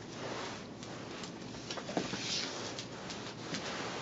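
Faint scratching and rustling from a cat clawing and biting a denim-and-sisal kicker toy, with scattered small clicks.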